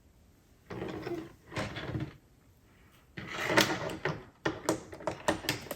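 Plastic LEGO pieces being handled and shuffled, with a quick run of sharp clicks near the end as bricks are pressed together.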